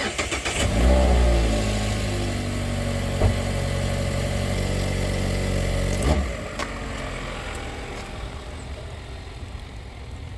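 Mazda MX-5 RF's four-cylinder engine starting, its revs flaring and then dropping to a steady idle, with a sharp knock about six seconds in.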